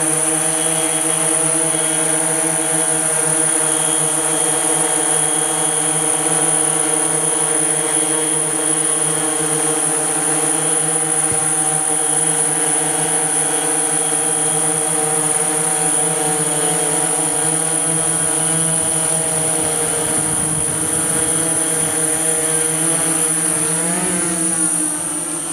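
DJI S1000+ eight-rotor drone hovering close by: a steady, many-toned propeller buzz. Near the end its pitch rises and wavers and the sound begins to fade as the drone moves off.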